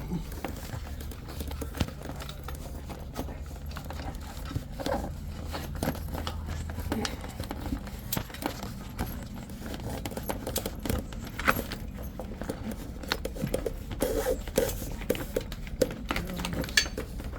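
Handling noise from a golf cart enclosure panel being slid into its roof-rail track: irregular small clinks, rattles and scrapes.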